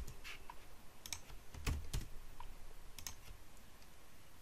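Computer keyboard keys being pressed: a handful of irregular keystrokes, arrow keys among them, while values are entered in software.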